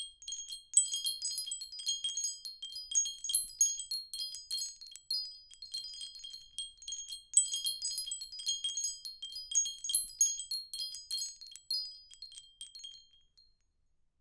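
Wind chimes tinkling: many light, irregular strikes of high metal tones, dying away near the end.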